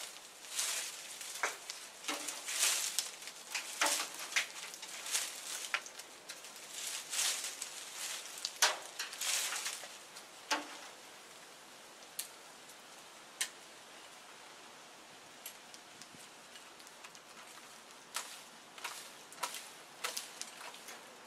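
Irregular rustling and scraping handling noises with scattered sharp clicks, from someone moving about close by in a tree. They thin out to a few clicks for several seconds past the middle, then pick up again near the end.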